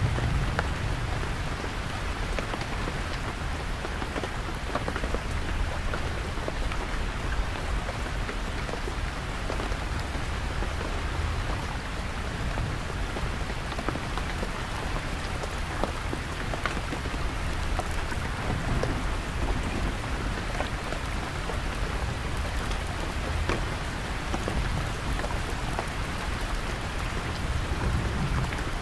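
Heavy rain falling on a canvas tent, the drops ticking on the fabric, over a deep rumble of distant thunder that swells and fades a few times.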